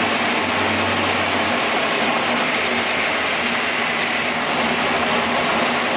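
Monarch 10EE lathe running steadily, its spindle turning at about 1,500 RPM under the 5-horsepower motor and solid-state drive: an even machine hiss with a steady low hum. A deeper hum fades away about a second and a half in.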